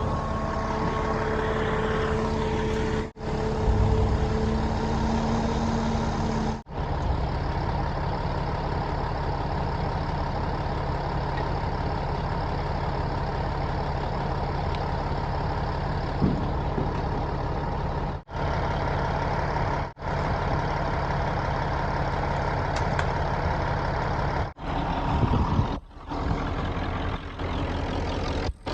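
Caterpillar bulldozer's diesel engine running steadily, broken by a few brief dropouts.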